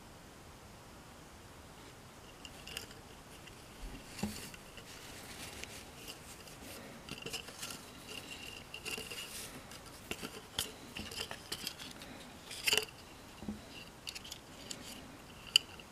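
Hands packing a silver bar into a cotton drawstring pouch and handling its paper tag: soft rustling of cloth and card with scattered small clicks and taps, starting about two seconds in. A single sharp tap near the end is the loudest sound.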